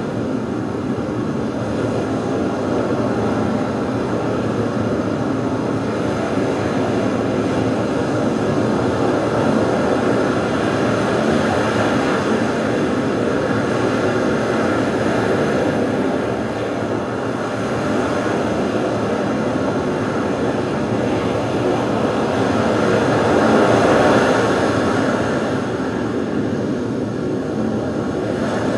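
Dance performance soundtrack: a dense, steady, rumbling noise drone with no beat, swelling briefly about three-quarters of the way through.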